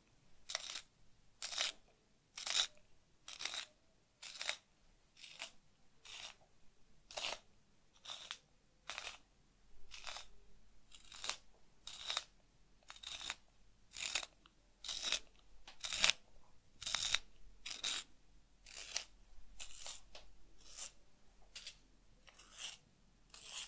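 A wooden pencil being twisted in a handheld sharpener, the blade shaving the wood in a steady run of short scraping strokes, about three every two seconds.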